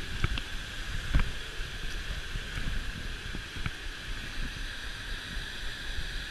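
Steady rush of a waterfall and white-water rapids, with low wind rumble on the microphone and a few short knocks, the loudest about a second in.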